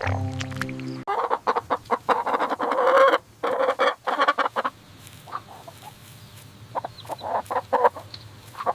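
Chickens clucking: a dense flurry of clucks for a few seconds, then a quieter spell, then scattered short clucks near the end.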